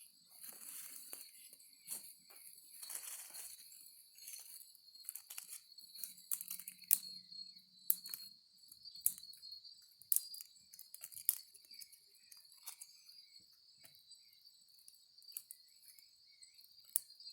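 Small campfire of dry twigs crackling, with sharp snaps and brief rustles of dry wood, over a steady high insect trill.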